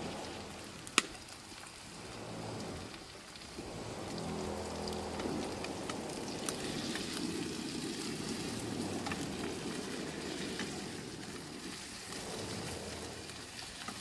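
Tomatoes and onion-garlic-ginger masala sizzling in mustard oil in a kadhai over a wood fire, stirred with a spatula, growing a little louder about four seconds in. Small ticks throughout and one sharp click about a second in.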